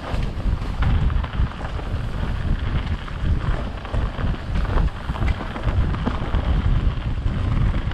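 Wind buffeting the microphone of a mountain bike riding fast down a dirt trail, with a loud, constant rumble and scattered knocks and rattles from the bike going over bumps.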